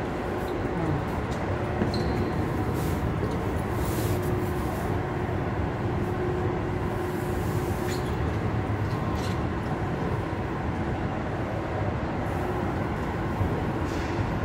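Steady rumble of the Horseshoe Falls at Niagara, muffled through window glass, with a faint steady hum and a few light clicks over it.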